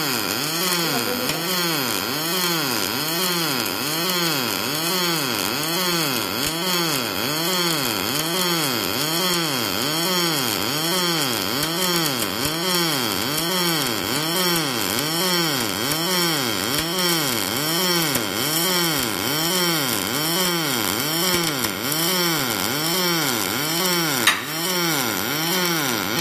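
Double-pulse MIG welding arc on mild steel from a PROMIG-500SYN DPulse XT welder: a steady crackling buzz whose pitch swells and falls in a regular rhythm a little over once a second, the welder's double-pulse cycle. There is a single sharp click near the end, and the arc cuts off abruptly as the weld stops.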